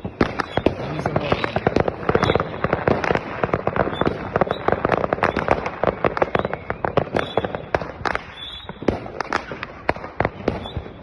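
Fireworks and firecrackers going off in a dense, overlapping run of sharp bangs and crackles, thinning out to separate bangs near the end.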